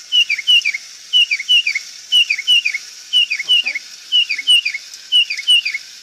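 Looped electronic bird-chirp sound effect played from the laptop by the LEGO WeDo Dancing Birds program: pairs of quick falling chirps repeating about once a second over a steady hiss. Faint irregular clicks run underneath.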